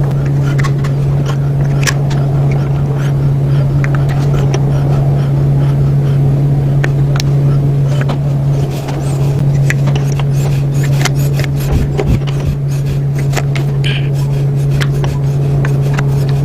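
A loud steady machine hum runs throughout, with scattered light metallic clicks and taps of engine parts being handled as valve lifters are fitted.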